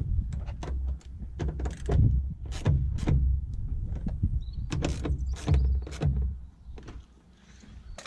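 Hand tool driving 6 mm bolts into a Fiat Scudo van's front door at the inner handle: irregular runs of sharp clicks and knocks of metal and plastic trim, dying away near the end.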